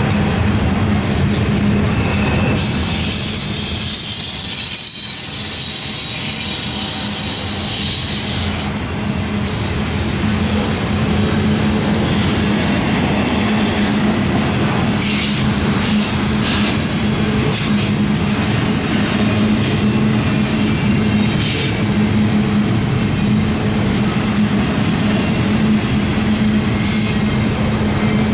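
Double-stack container train's well cars rolling past: steady wheel-on-rail rumble with a hum. A high-pitched wheel squeal rises a few seconds in and fades by about nine seconds. Scattered sharp clanks come later.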